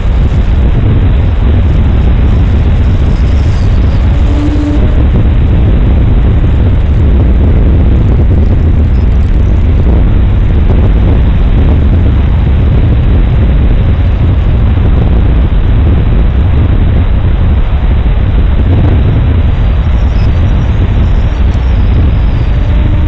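Radio-controlled Extra 330S aerobatic model plane in flight: its engine and propeller running with a loud, steady rush of air, heavy in low rumble.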